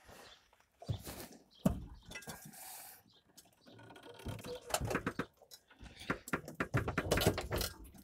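Metal clanks, clicks and scrapes from the tilt cab of a JAC N55 electric truck as its latch is released and the cab is tipped forward on its hinges.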